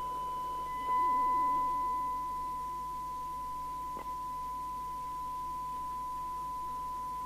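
Steady 1 kHz test tone from a signal generator, received and played through the speaker of a Barracuda GT868 27/81 FM CB radio under alignment. It gets louder about a second in and then eases back a little, with a brief click about four seconds in.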